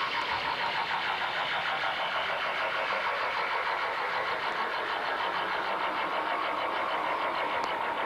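A steady engine-like drone with a fast, even pulse, over the murmur of a large crowd.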